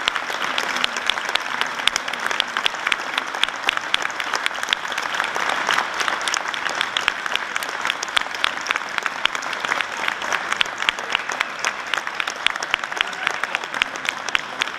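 Audience applauding steadily, with many sharp individual claps.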